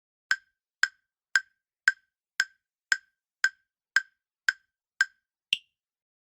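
Countdown-timer tick sound effect: eleven sharp wood-block-like ticks, about two a second. The last tick is higher in pitch and marks the end of the count.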